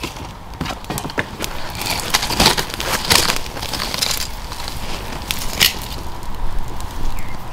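Small campfire of thin split kindling crackling with irregular sharp snaps as the sticks are shifted in it; busiest about two to three seconds in.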